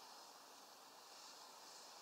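Near silence: a faint, steady hiss of background room tone.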